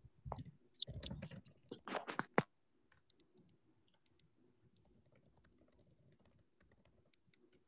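Scattered clicks and soft knocks from an open microphone on a video call, for about the first two and a half seconds, then near silence.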